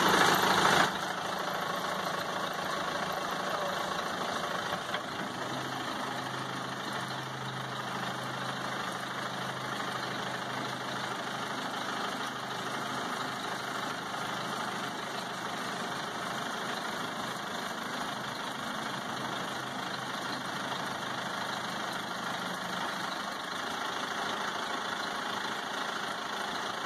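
Backhoe engine running steadily at idle, louder for about the first second, while the bucket is worked up and down on its hydraulics to check that the piston clears a newly fitted part.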